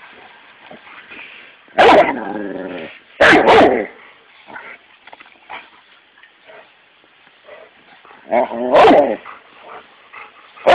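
A dog barking in short, loud bursts: one bark about two seconds in, two quick barks just after three seconds, and one more near the end, with only faint scuffling between.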